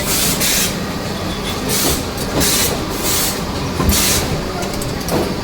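Connector injection-molding machinery on a cable production line running, with a steady hum and repeated short hisses of air. A sharp knock comes about four seconds in.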